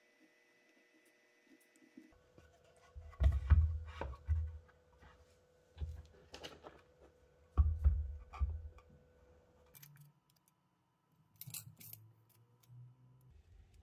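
Handling noise as a small metal model engine is lifted and set down on a black block base: a few dull knocks and thumps, loudest about three and a half and eight seconds in, then light clicks near the end.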